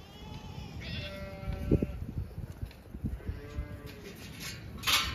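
A young calf bawling, several short high calls one after another, with a single knock about a second and a half in and a brief rustling burst near the end.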